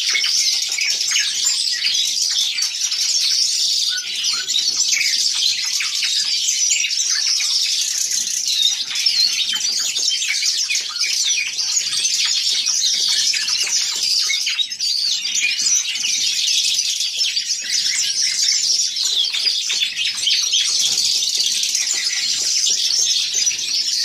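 Caged songbirds, a nightingale among them, twittering and singing without a break in a dense, high-pitched chorus.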